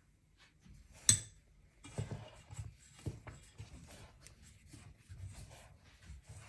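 A sharp clink about a second in, then a spoon stirring flour into a milk dough in a stainless-steel bowl: irregular scraping and rubbing strokes with soft thuds.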